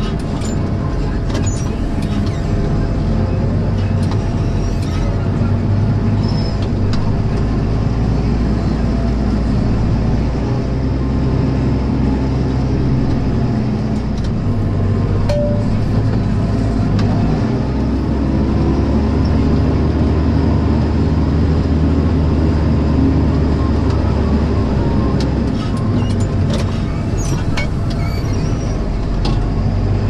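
Tractor engine running steadily under load while pulling a mounted reversible plough through the soil, its note shifting a few times. A few light knocks are heard near the start and again near the end.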